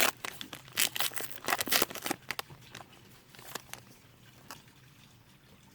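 A baseball card pack's wrapper being torn open and crinkled: a run of sharp rustling and crackling over the first two seconds or so, then a few faint crackles as the cards come out.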